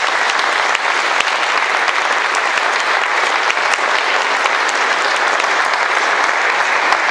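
Audience applauding steadily, a dense mass of hand claps.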